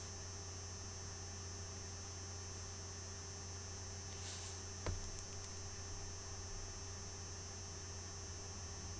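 Steady low electrical hum with a faint background hiss from the recording chain; a brief soft rustle and a single short click about halfway through.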